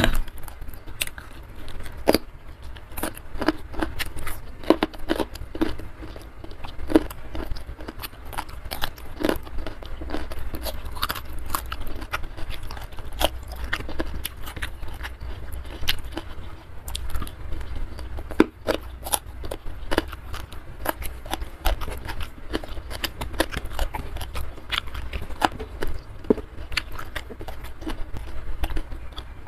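Close-miked eating: a person chewing, with a dense, irregular run of wet mouth clicks and small crunches.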